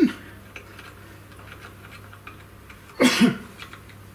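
Faint small clicks of a screw, spring washer and flat washers being turned in by hand, with one short, loud cough-like vocal burst about three seconds in.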